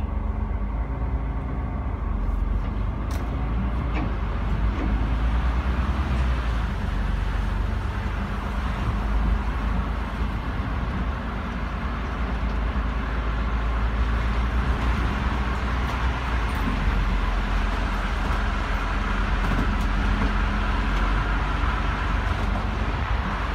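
Bus engine and tyres on a snow-covered road, a steady low rumble of driving noise heard from the driver's cab.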